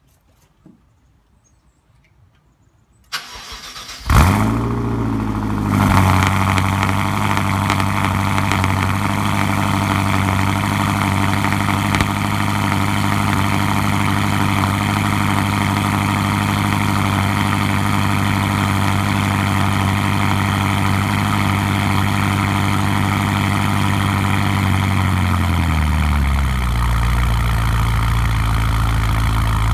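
BMW E70 X5 M's twin-turbo V8, breathing through Active Autowerke downpipes and a Meisterschaft GTC muffler with its valves open, cold-started: after a few faint clicks the starter cranks for about a second, the engine catches with a loud rising flare about four seconds in and settles into a steady fast cold idle. Near the end the idle drops smoothly to a lower, deeper note as the cold-start fast idle comes down.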